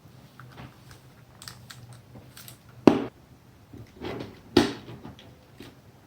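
Scattered clicks and knocks of wire and terminal handling while a wire is connected from a selector switch to a stop button in a control circuit. There are two sharper clicks, about three and four and a half seconds in.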